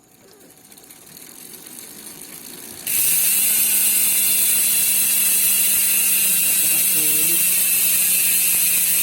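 Speedone Torpedo 8-pawl bicycle rear hub freewheeling: faint at first, then about three seconds in it breaks into a loud, steady ratcheting buzz of pawls clicking too fast to count. The hub has been run until its factory oil has dried out, which makes it louder.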